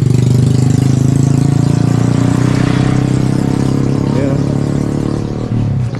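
Motorcycle engine idling steadily, dipping briefly near the end.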